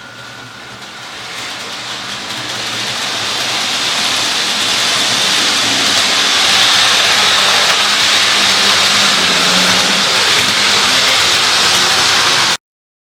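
Model electric train running on the track, its motor and wheels making a steady whirring noise that grows louder over several seconds as it comes closer, then cuts off abruptly near the end.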